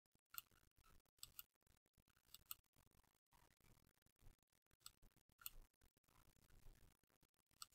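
Near silence, with a dozen or so faint, short clicks scattered irregularly through it.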